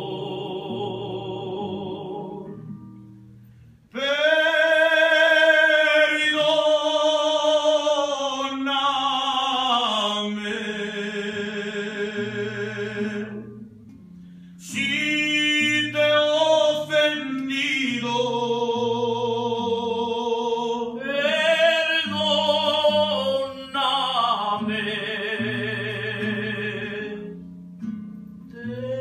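Mariachi song: male voices singing long, held phrases with vibrato over plucked-string accompaniment with a bass line, the singing dropping away and coming back strongly about four seconds in.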